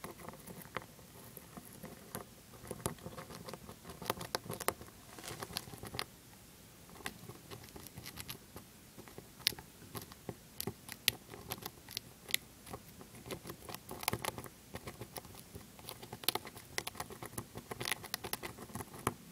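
Dwarf hamster gnawing a shelled peanut: a quick, irregular run of small crunchy clicks in bursts, with short pauses between them.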